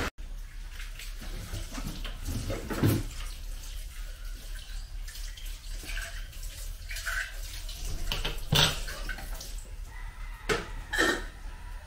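Water running from a tap, with scattered short clinks and knocks of dishes or utensils.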